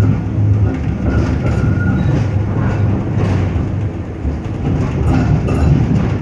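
Schindler Ag Be 4/6 tram running along the rails, heard from on board: a steady loud rumble of wheels on track with a low motor hum, as it rounds a curve through a junction.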